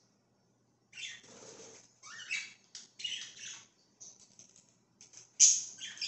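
Budgerigars chirping and chattering in short, irregular high calls, starting about a second in, with the loudest chirp about five and a half seconds in.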